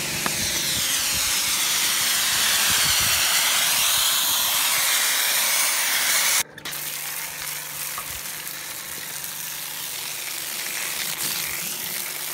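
High-pressure washer jet hissing as it blasts a steel mower cutter bar, at first with blasting sand drawn into the water through a wet-sandblasting lance. About six seconds in the sound cuts off for an instant and returns a little quieter, with a low steady hum underneath.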